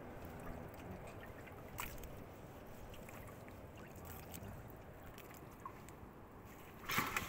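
A kitchen knife cutting raw seafood on a wooden chopping block: a few faint taps over a low steady background noise, then a short louder clatter near the end as the pieces are pushed off the block into a ceramic bowl.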